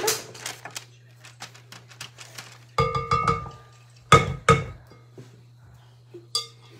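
Metal teaspoons clinking against a glass mixing bowl while scooping sticky cookie dough: small clicks, then ringing knocks about three and four seconds in, and a lighter clink near the end.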